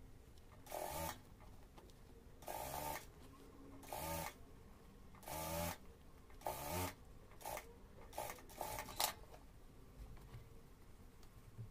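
Jack industrial flatbed sewing machine stitching through corduroy in short runs: five bursts of about half a second each, then four quick short spurts of stitching near the end.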